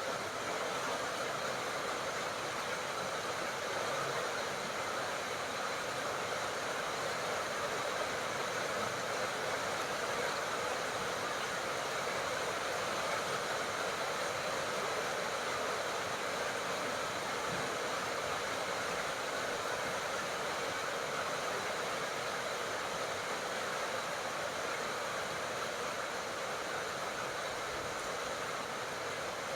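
Steady tropical rain falling, an even rushing hiss with no single drops or thunderclaps standing out.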